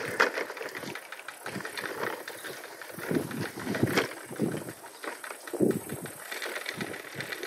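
A child's plastic toy cart rattling and clattering as it is pushed and handled over dug garden soil. There are heavier knocks about halfway through and again a little later.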